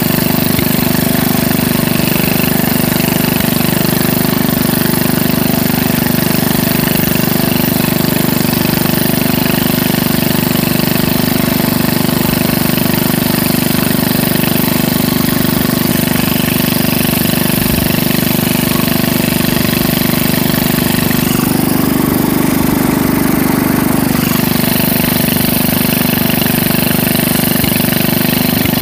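John Deere 110 lawn tractor engine running steadily as the tractor is driven across grass, with a brief change in tone a little past the middle.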